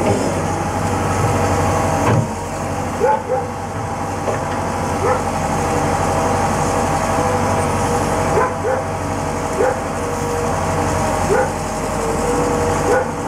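Liebherr R911B crawler excavator's diesel engine running steadily under load while it digs, with short, sharp rising squeals about once a second over it.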